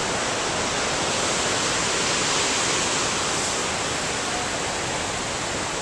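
Steady, even rushing roar of a waterfall in a gorge below.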